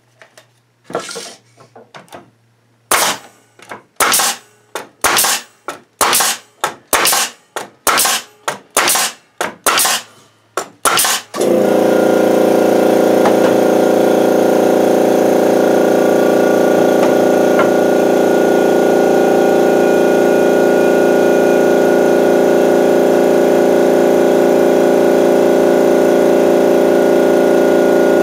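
Bostitch N75C-1 pneumatic coil nailer driving 3-inch nails into a wooden board, a quick series of sharp shots. About eleven seconds in, the Makita MAC2400 air compressor cuts in and runs steadily: the nails have drawn the tank down to its cut-in pressure and it is refilling the tank.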